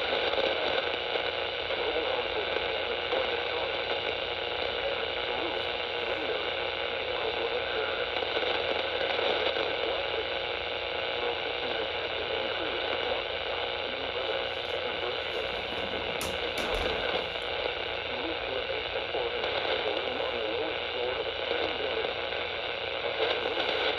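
Steady radio static from a receiver on a weak signal, an even hiss with faint wavering traces that may be buried speech.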